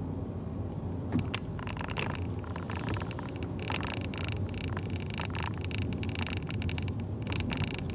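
Car moving slowly, heard from inside the cabin: a steady low engine and road rumble, with frequent short clicks and rattles over it.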